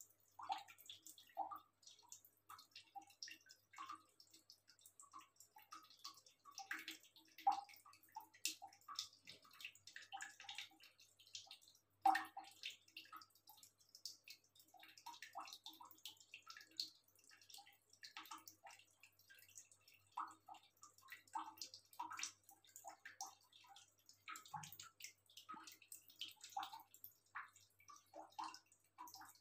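A cat lapping water from a plastic basin: quick, irregular small wet splashes, several a second.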